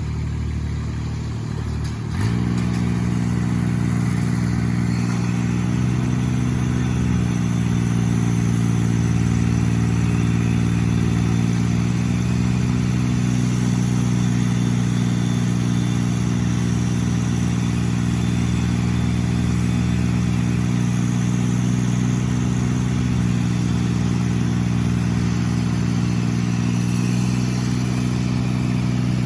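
A large engine on tree-removal equipment speeding up about two seconds in, then running steadily at high speed.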